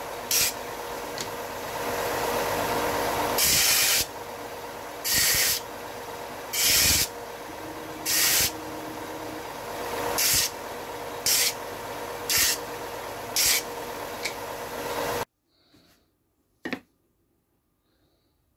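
Bench belt sander running steadily, with a short rasping hiss each time a small MDF square is pressed against the moving belt, about nine times. The sander cuts off suddenly near the end, followed by a single light tick.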